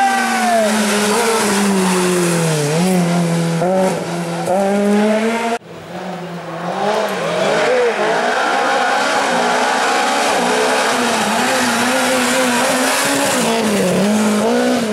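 Rally car engines driven hard through tight bends, first a Citroën C2 and then a first-generation Renault Clio. The engine note repeatedly drops on the brakes and downshifts, then climbs again under acceleration. The sound cuts off abruptly about five and a half seconds in, where the first car gives way to the second.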